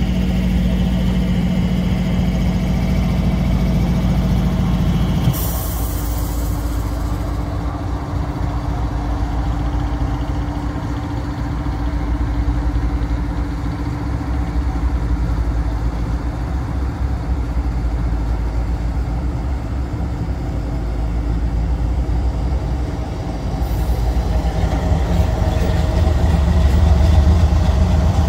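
Florida East Coast Railway GE ES44C4 diesel locomotives, run with an LNG fuel tender, passing slowly with their engines running steadily. A steady low hum drops out about five seconds in, and the low engine rumble grows louder near the end as the next locomotive comes by.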